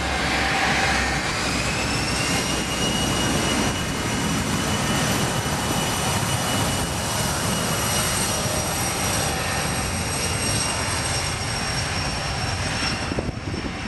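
Bombardier CRJ-200's twin rear-mounted General Electric CF34 turbofans at takeoff power during its takeoff roll: a steady jet roar with a high whine that rises in pitch over the first two seconds and then holds.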